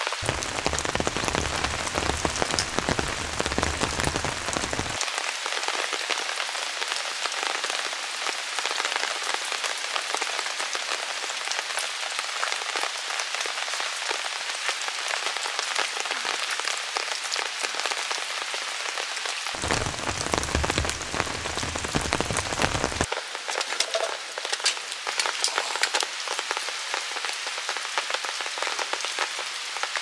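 Steady heavy rain falling, with many separate drop hits heard through it. A low rumble comes in twice, for the first five seconds and again for a few seconds about twenty seconds in.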